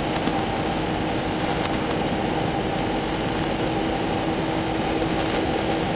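Steady idling vehicle engine noise with a constant low hum, even and unchanging throughout.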